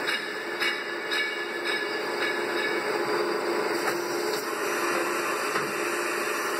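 CNC milling machine running with coolant spraying over a sprocket held in a chuck: a steady mechanical whir and hiss with a held low hum.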